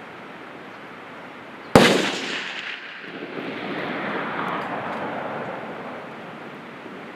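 A single hunting rifle shot at a black bear: one sharp, very loud crack about two seconds in, dying away over about a second, then a softer rumble that swells and fades over the next few seconds.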